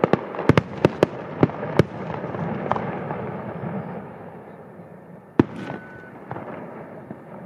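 Fireworks display: a quick series of sharp aerial shell bursts in the first two seconds, then a dense rumble and crackle that fades away, and a single loud bang about five seconds in.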